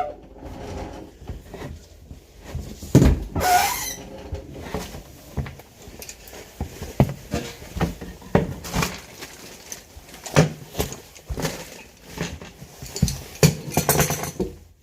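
Irregular clicks and knocks of hard parts being handled, with a louder brief squeal about three and a half seconds in.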